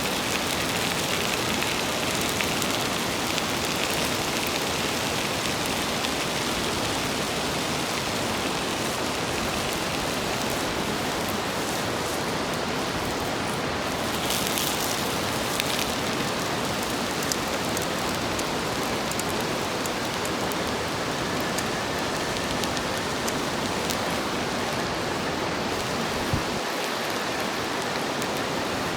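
Food sizzling steadily on an iron griddle plate over a campfire, with scattered small pops and crackles.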